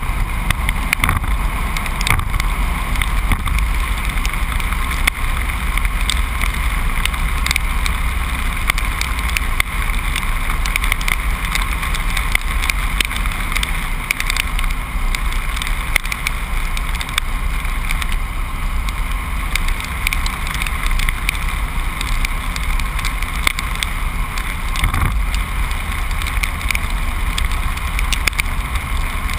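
Truck driving at steady speed: a continuous low rumble of engine and road noise with no changes, and a few faint ticks.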